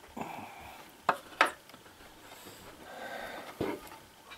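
Two sharp clicks about a second in, a third of a second apart, amid soft handling noise as wires and plastic twist-on wire connectors are handled.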